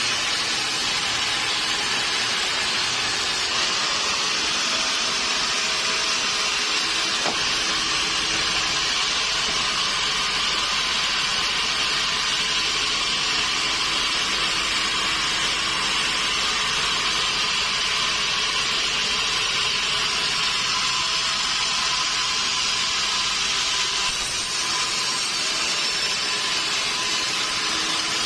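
Sawmill saw cutting steadily through a mahogany log, a continuous high sawing noise that shifts slightly a few seconds in and again near the end.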